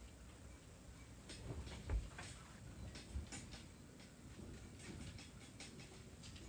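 Faint scattered clicks and light knocks over a low background rumble, with a dull thump about two seconds in and a smaller one about a second later.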